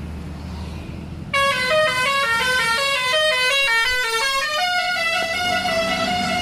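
Basuri V3 telolet bus horn playing its melody sped up 1.3 times: after a low hum, a fast run of short stepping notes starts about a second in, and settles into a longer held note in the last two seconds.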